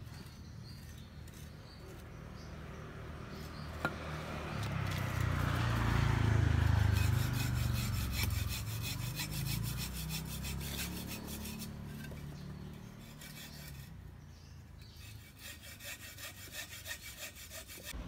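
Quick rhythmic rasping strokes, several a second, over a low rumble that swells in the middle and then fades.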